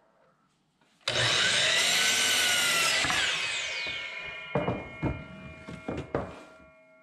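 DeWalt sliding compound miter saw starting about a second in and cutting through a wooden board for about two seconds, then winding down with a falling whine while the blade rings as it coasts. Several sharp wooden knocks follow as the cut board is lifted and moved on the saw table.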